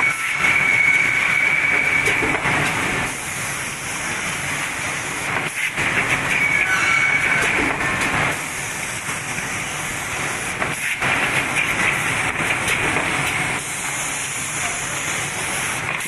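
Automatic rigid-box forming machine and its conveyor belts running: a steady mechanical din with hiss and fine clatter, and a high whine that comes and goes.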